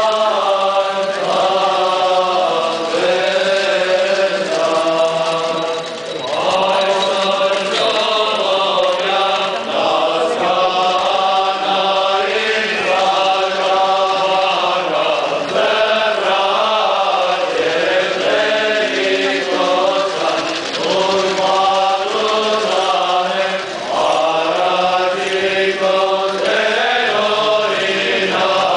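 A men's choir chanting an Armenian liturgical hymn, in long held phrases with short breaks between them.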